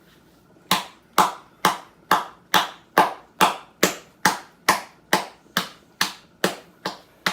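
Hand claps in a steady, even rhythm, about two a second, beginning just under a second in.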